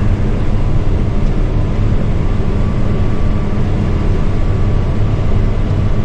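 Combine harvester running steadily while harvesting barley, heard from inside the cab: a constant low engine drone with a thin steady whine above it.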